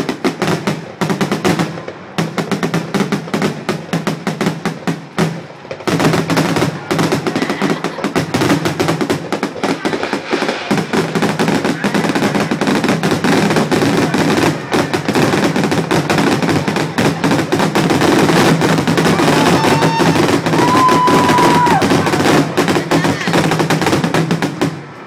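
Fireworks grand finale: aerial shells bursting in a rapid, overlapping barrage of reports, almost continuous, with a brief thinning about five seconds in before it grows denser again.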